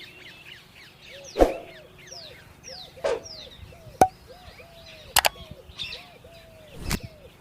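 Birds chirping with many quick falling notes, while a lower call repeats in short arched notes. Five sharp knocks cut through at uneven intervals.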